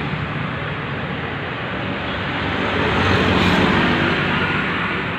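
A motor vehicle's engine running with rushing road noise, swelling about three seconds in and easing off again.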